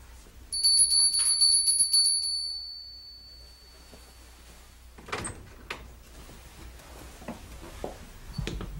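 A bell rings with fast repeated strikes for about two seconds, then fades. A few sharp clicks follow, and a low knock near the end as a door is pushed shut.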